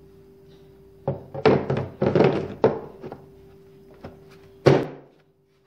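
Screwdrivers knocking and rattling against a hard blue plastic tool case as they are put back and picked out: a cluster of clatters, then one sharp knock near the end.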